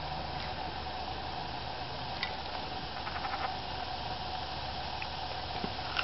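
Steady outdoor hiss with a faint steady hum, broken by a few light taps and clicks as leopard frogs lunge at a smartphone screen and shift in the dry leaves. There is a quick run of clicks around three seconds in, and the loudest tap comes right at the end.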